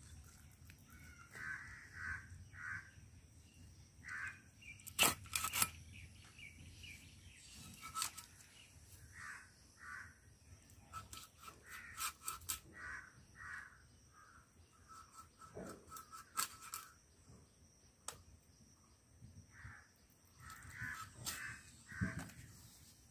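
Birds calling repeatedly outdoors in short calls, with a few sharp knocks and cracks as a chicken is cut into pieces against a blade; the loudest is a pair of knocks about five seconds in.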